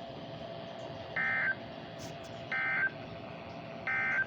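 NOAA Weather Radio's Emergency Alert System end-of-message signal: three short, identical bursts of SAME digital data tones, each about a third of a second long and spaced about a second and a third apart, marking the end of the severe thunderstorm warning. A faint steady radio hiss lies under them.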